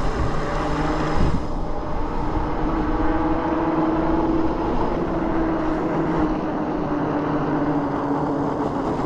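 Dual Bafang electric hub motors of a 72V fat-tire e-bike under way, giving a steady whine that climbs a little about two seconds in and eases slightly near the end, over a continuous rush of wind and fat-tire noise.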